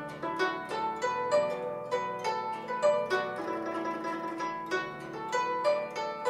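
Background music: a melody of quick plucked-string notes, several a second.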